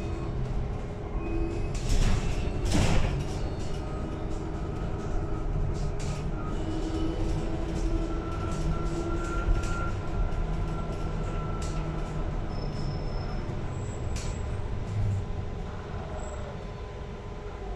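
Cabin of a LiAZ-6274 battery-electric bus under way: a steady rumble of tyres and body with a faint whine from the electric drive that rises and falls. There are loud knocks and rattles about two and three seconds in.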